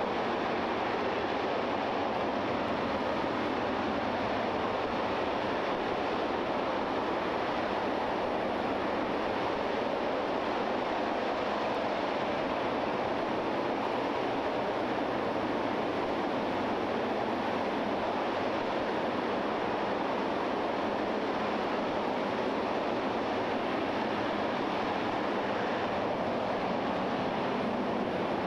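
RS-25 liquid-hydrogen/liquid-oxygen rocket engine firing on a test stand: a steady, unbroken rushing noise that holds the same level throughout.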